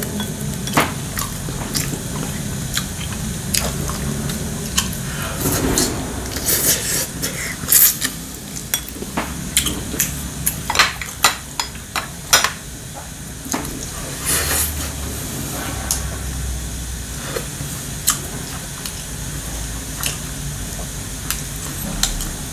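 Eating at a table: chopsticks and a spoon clicking irregularly against ceramic bowls and a pot, with chewing in between.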